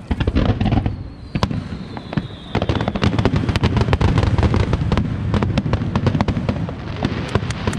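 Aerial fireworks bursting: a loud bang at the start, a high whistle sliding downward, then from about two and a half seconds in a dense run of rapid bangs and crackles with a low rumble as many shells burst together.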